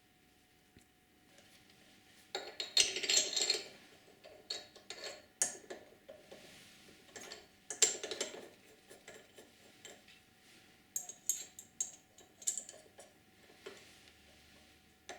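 Metal parts and tools being handled on a workbench, clinking and clattering in irregular bursts, the loudest about two and a half seconds in and again about eight seconds in.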